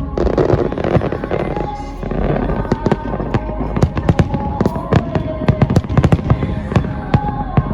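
Aerial firework shells bursting in rapid succession: many sharp bangs, with a dense crackle in the first second and a half, over music playing.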